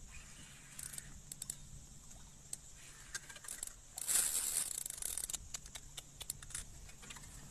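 Faint, irregular clicks and rattles of a fishing rod and spinning reel being handled, with a burst of hiss about four seconds in.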